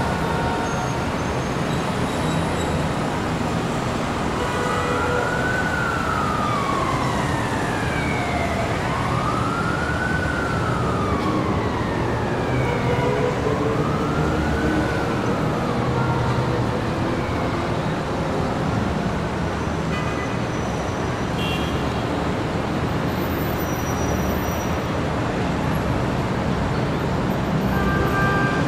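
City street traffic noise, steady throughout, with an emergency-vehicle siren in wail mode rising and falling slowly about three times, from about five seconds in until about sixteen seconds in.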